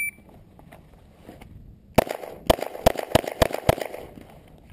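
Glock 19 Gen 3 9mm pistol fired six times in rapid succession in a Bill Drill, the timed draw-and-fire-six-shots drill. The first shot comes about two seconds in and the others follow in about a second and a half, the gaps shortening from half a second to a quarter. The tail of the shot timer's start beep is heard at the very start.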